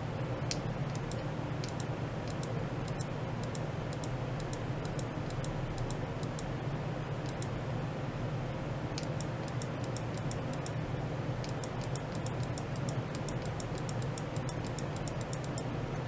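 A steady low hum with clusters of faint, quick clicks: one cluster in the first few seconds, and a denser run from about nine seconds in until near the end.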